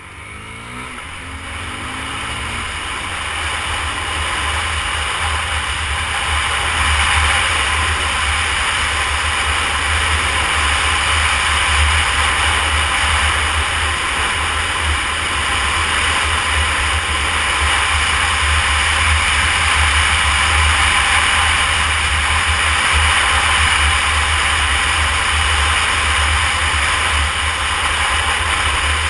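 Wind rushing and buffeting over the camera microphone on a moving Honda CBR250R motorcycle, growing louder over the first several seconds as the bike gathers speed and then holding steady. The bike's single-cylinder engine rises in pitch at the very start and is then mostly buried under the wind.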